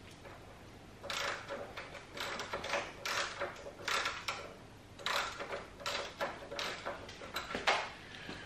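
Ratchet wrench worked in short strokes on a seized strut top-mount nut, about a dozen quick bursts of ratcheting clicks starting about a second in. The nut has only been welded to its bolt, so the bolt turns with it rather than coming free.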